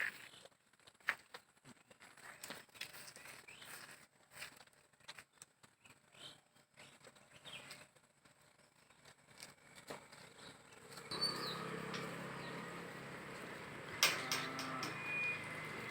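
Cattle grazing and moving through grass: faint scattered rustles and clicks. About eleven seconds in, a louder steady noise with a low hum starts suddenly and continues, with a brief pitched call about three seconds later.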